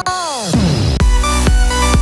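Background electronic dance music. Falling pitch sweeps give way, about a second in, to a steady heavy beat with deep bass.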